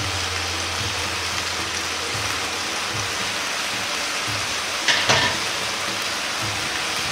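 Yakisoba noodles and stir-fried vegetables sizzling steadily in a frying pan, the noodles just laid into the hot seasoning sauce in the middle of the pan. A couple of sharp taps sound about five seconds in.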